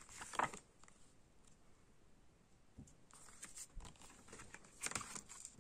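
Hands handling a CD's paper booklet and case: a soft paper rustle just after the start, then a few more quiet rustles and light knocks in the second half.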